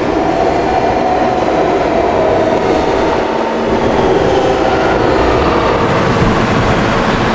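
New York City subway F train running through the station: a loud, steady rumble of wheels on rail with a humming whine that drifts slightly in pitch.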